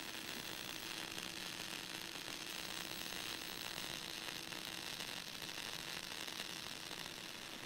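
Steady hiss of radio static from a radio telescope receiver, with a faint steady hum underneath and no signal in it.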